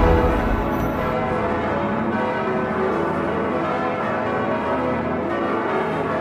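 Large church bells swinging in a wooden belfry and ringing together in a continuous, overlapping peal. The song's closing music dies away in the first second.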